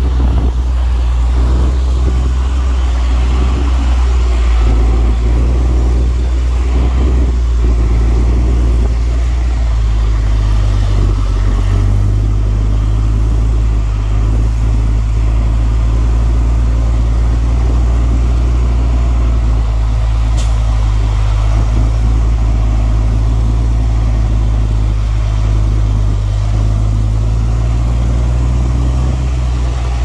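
Heavy diesel engine of earthmoving machinery running steadily under load, a loud, deep, unbroken drone.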